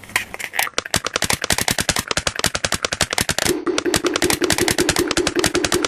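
Rapid, even clicking at about ten clicks a second. About three and a half seconds in, a pulsing mid-pitched buzz joins it, keeping time with the clicks.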